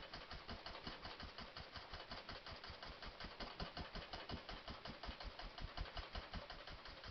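A 1-inch brush dabbing paint onto a stretched canvas, a fast, even tapping of about eight to ten strokes a second. The canvas flexes and drums under the hard dabbing.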